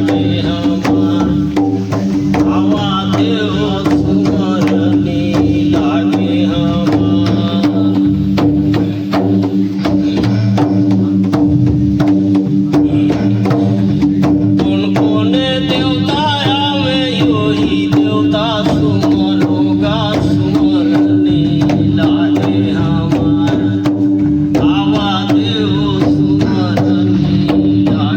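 Instrumental interlude of Chhattisgarhi devotional folk music: a steady drone under a wavering, ornamented melody, with busy hand-drum percussion throughout.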